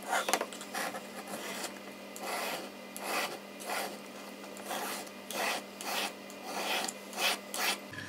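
Small Victorinox pocket-knife blade rasping across a hand-held sharpening stone in a series of short strokes, roughly two a second: honing a blade that has gone fairly dull.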